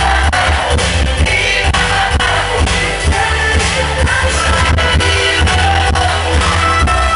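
Loud dance-party music over a sound system, with a heavy steady bass beat and singing.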